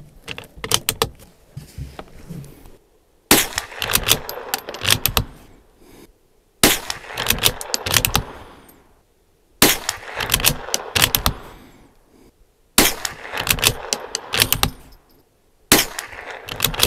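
Five shots from a Bergara B14R bolt-action .22 LR rifle firing Remington Target ammunition, spaced about three seconds apart. Each shot is followed by a quick run of metallic clicks as the bolt is worked to chamber the next round.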